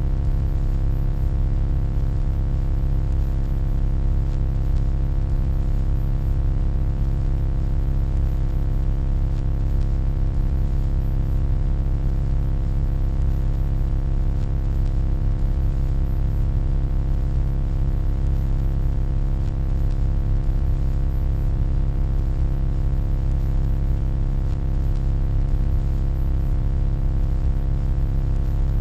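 Steady electronic hum: a deep low drone with a stack of fainter steady tones above it, running without change.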